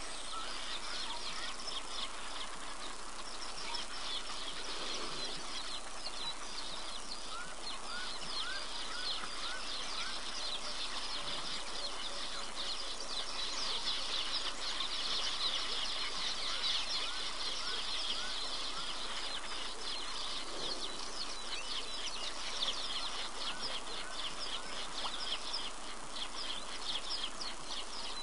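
Many wild birds calling at once: a dense high twittering chorus, with short rising whistled notes that repeat every second or so.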